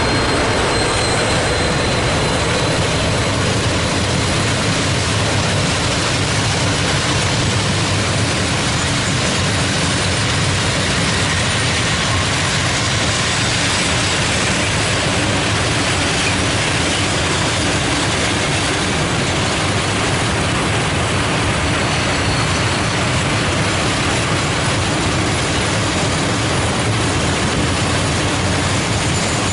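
A long freight train of hopper wagons rolling past close by: a steady, loud rolling noise of steel wheels on the rails.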